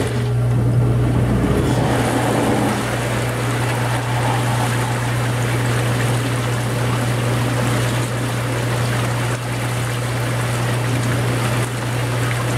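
Jacuzzi J-series hot tub's pump running just after power-up on a fresh fill: a steady electric motor hum with water rushing and trickling through the plumbing.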